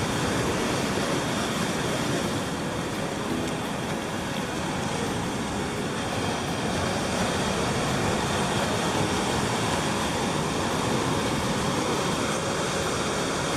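Ocean surf washing steadily onto a sand beach as the tide comes in.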